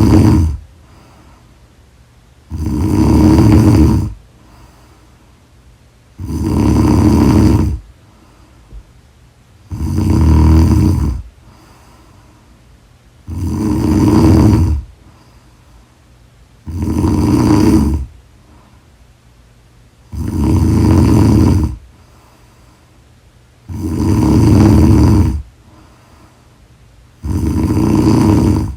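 A woman snoring in a steady rhythm: eight long snores of about a second and a half each, one roughly every three and a half seconds, with quiet between them.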